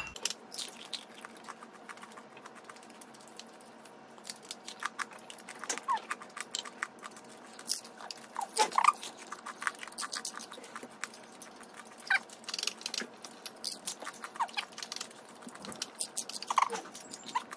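Close-up crunching and chewing of crispy pork chicharon (deep-fried pork rind), with many sharp crackles as the pieces are bitten and chewed.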